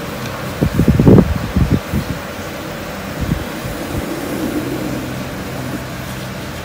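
Steady background hum, with a cluster of low thumps about a second in and a few more around three to four seconds.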